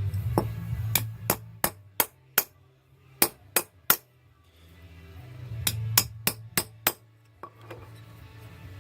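Hammer striking a sharp chisel wedged between a pressed-on wheel bearing race and the wheel flange, sharp metal-on-metal strikes in three quick runs of about three a second, working the race loose.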